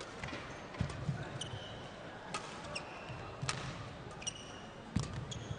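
Badminton rally: racket strikes on the shuttlecock about every second or so, with shoes squeaking and footfalls on the court mat.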